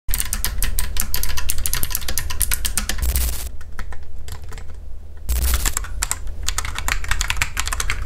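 Fast typing on mechanical keyboards: a rapid, dense run of key clicks that thins out for about two seconds in the middle, then picks up again.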